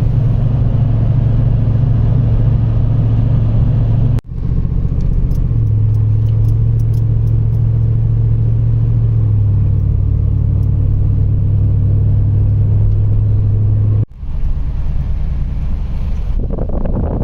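Supercharged Mazda Miata engine running hard at fairly steady revs, loud. It comes in three clips joined by abrupt cuts about four and fourteen seconds in, and the pitch drops slightly midway.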